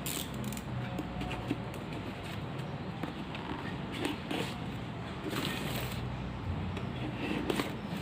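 Handling noises: scattered small clicks, taps and light scrapes, as of diecast toy car packaging being handled, over a steady low hum.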